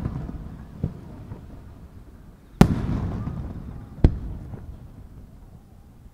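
Aerial firework shells bursting in a display: a loud bang about two and a half seconds in and another about four seconds in, each followed by a rumbling echo that dies away over a second or two. A smaller pop comes near the start, over the fading rumble of an earlier burst.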